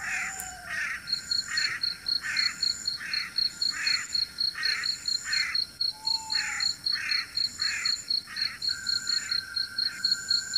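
Night chorus of crickets and other insects: a rapid, even high chirping over a slower pulsing call of about two to three pulses a second. A short falling whistle sounds twice, at the start and about six seconds in.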